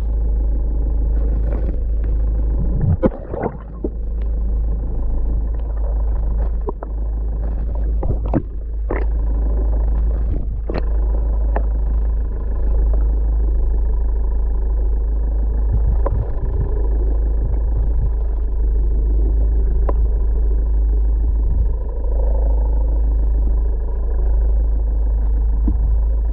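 Muffled water rumble picked up by a camera held underwater, with nothing above a dull low range and a few sharp knocks against the housing in the first dozen seconds.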